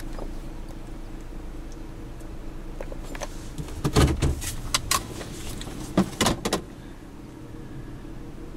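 Steady low hum of a vehicle, with clusters of sharp knocks and rattles about four and six seconds in.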